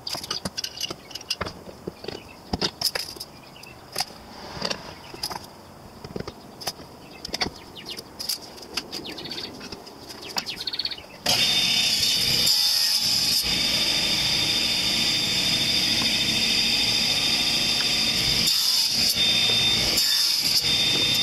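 Scattered wooden knocks and clicks as a stop block, tape measure and C-clamp are set on a table-saw crosscut sled. About eleven seconds in, the table saw starts suddenly and runs loud and steady with a high whine, dipping briefly a few times as the sled is pushed through.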